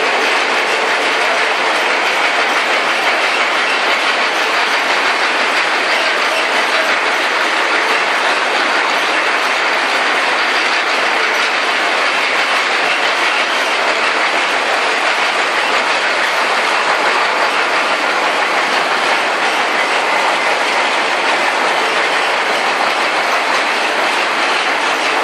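Industrial processing-line machinery with a belt conveyor and hoppers running steadily, a loud, even mechanical noise with no let-up.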